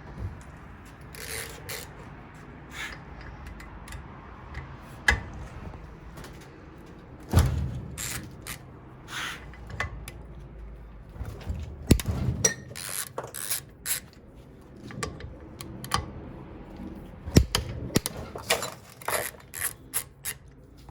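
A big wrench loosening the nipple cup nuts on a 6.0 Powerstroke oil rail clamped in a vise: scattered metal clicks and clanks, with a few sharper knocks.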